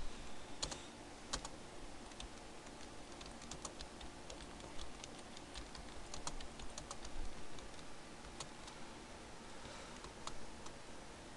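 Typing on a computer keyboard: irregular key clicks in short runs, with a few louder strokes among them.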